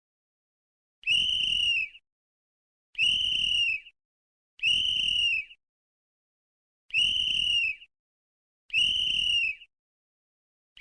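Sports referee's whistle blown in five short blasts of a steady high pitch, each just under a second long, with gaps of about one to two seconds between them.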